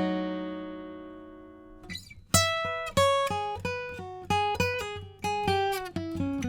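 Gibson 50's J-45 Original acoustic guitar, flatpicked. A note rings out and dies away for about two seconds, then after a short scrape comes a quick run of single picked notes.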